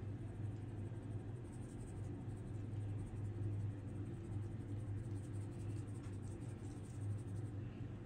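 Faint, soft scratchy rustle of ground spice shaken from a shaker bottle onto raw beef neckbones, over a steady low hum.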